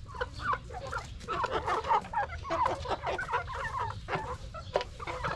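A group of Dong Tao (dragon-feet) chickens clucking, many short calls overlapping one another.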